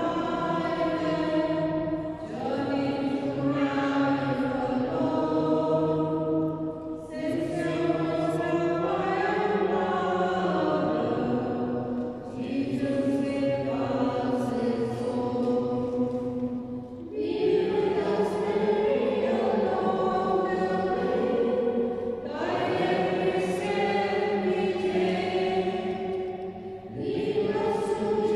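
Voices singing a church hymn in long, held phrases of about five seconds each, with brief pauses for breath between them.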